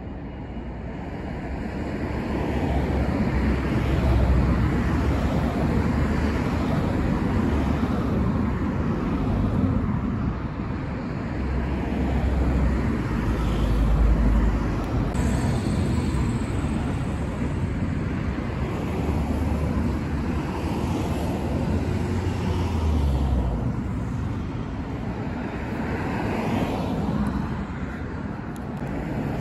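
A train running through the station, a steady low rumble that builds over the first few seconds and then holds, swelling and easing.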